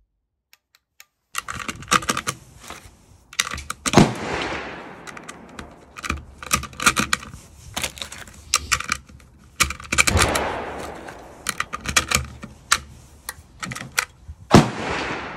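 Rifle cartridges being pressed one after another into a steel Kalashnikov magazine, a quick run of sharp metallic clicks. A few loud gunshots from other rifles on the range ring out among them, each with a long echoing tail.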